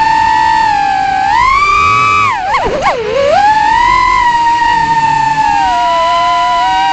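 3-inch FPV drone's brushless motors whining. The pitch rises about a second and a half in, then dips sharply and wobbles quickly for a moment before settling back into a steady whine, following the throttle.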